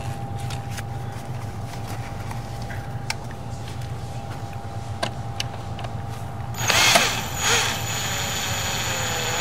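Power drill with a driver bit tightening a terminal screw on a sprinkler controller. It runs with a steady whine, starting about two-thirds of the way in and lasting about three seconds, after a few light clicks from handling the wires.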